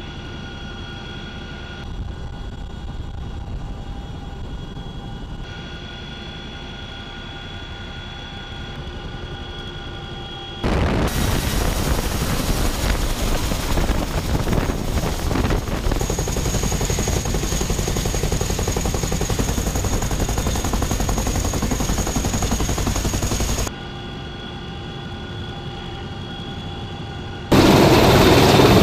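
Helicopter noise: a steady turbine and gearbox whine heard from inside the cockpit, then about ten seconds in a loud rushing roar of rotor downwash and wind buffeting the microphone beside a turning tandem-rotor helicopter on a ship's flight deck. The cockpit whine returns near the end, and a hovering helicopter, the loudest sound, comes in just before the end.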